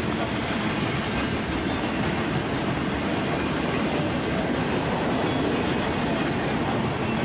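Norfolk Southern freight train rolling past, its cars' wheels making a steady rumble on the rails.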